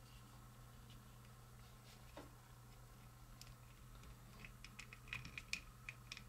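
Faint plastic clicks and scratching from a small plastic transforming toy being handled as its parts are pushed and folded, with the clicks coming closer together in the second half, over a steady low hum.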